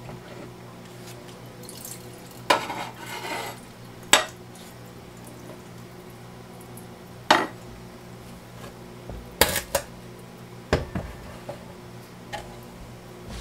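Plant pots, saucers and a plastic watering can knocked and set down in a stainless steel sink: half a dozen separate sharp clinks and clunks, with a short rustle of handling a little after two seconds. A faint steady hum runs underneath.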